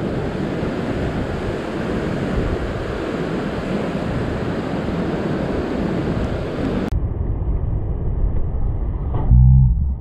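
Surf breaking and washing over a rock ledge, heard as a steady rushing noise mixed with wind on the microphone. About seven seconds in the sound turns suddenly muffled, and near the end comes a brief, loud, low voice-like sound.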